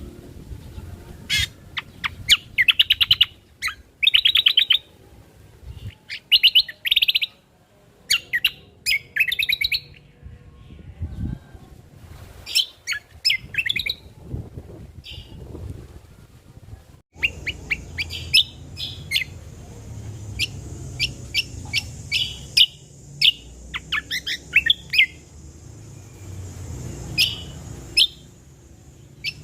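Cucak kombo songbird singing: repeated bursts of rapid, sharp chirping trills, each about a second long, with short gaps between. About two-thirds of the way through, the recording changes abruptly and a steady high hiss sits behind the song.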